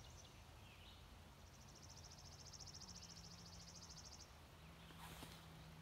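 Quiet open-field ambience, close to silence. A faint, high, rapid trill starts about one and a half seconds in and lasts about three seconds, over a low steady hum.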